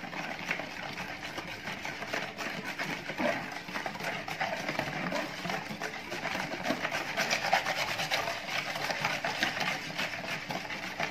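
Wire whisk beating a thin liquid mix of egg, oil, milk, sugar and yeast in a plastic bowl: a fast, steady run of scraping, sloshing strokes against the bowl.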